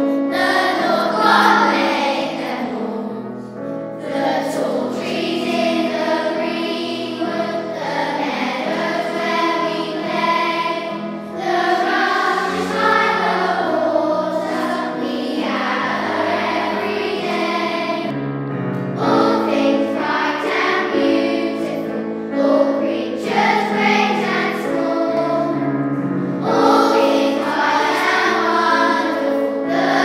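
A choir of school children singing a song together in unison, with a low musical accompaniment beneath the voices.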